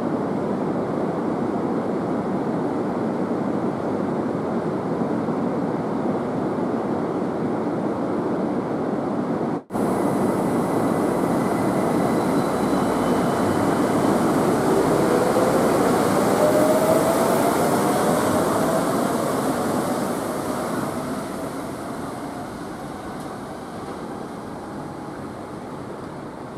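Steady rushing noise, then a straddle-beam monorail train passing close and pulling away, its motor whine rising in pitch as it gains speed before fading off.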